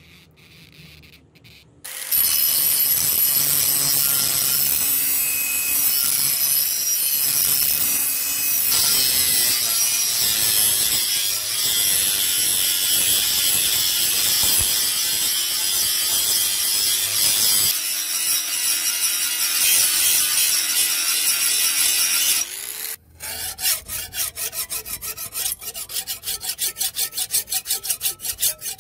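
Angle grinder with a thin cut-off disc cutting through the steel of an old saw blade, running steadily for about twenty seconds before it stops. Then a hand file rasps along the cut steel edge in quick, even strokes.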